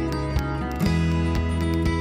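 Instrumental background music: held chords with short, light percussive clicks.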